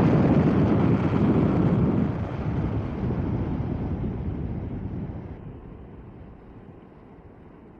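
Thunder rumbling after a close strike, its low roll dying away steadily over several seconds.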